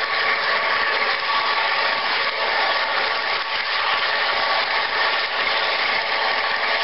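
Model train running at speed along its track, heard from aboard a car: a steady whirring of motor and wheels with a constant whine of several steady tones.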